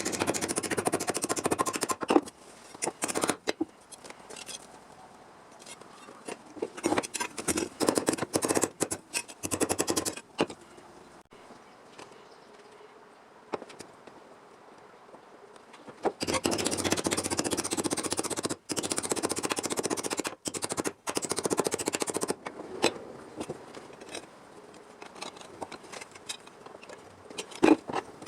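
Scraping, rasping metalwork noise on sheet steel, in three bursts: about two seconds at the start, about three seconds near the middle, and a longer stretch of about six seconds later, with quiet clicks between.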